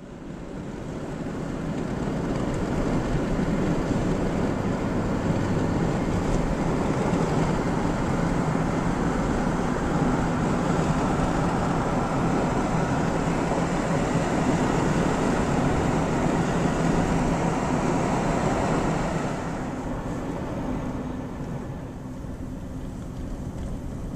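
Steady road and wind noise of a car driving along, heard from inside the car. It drops noticeably about three quarters of the way through.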